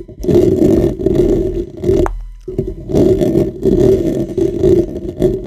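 Fingers scratching and rubbing directly on a microphone's grille: a loud, close scratchy rustle in two long stretches, with a short break about two seconds in.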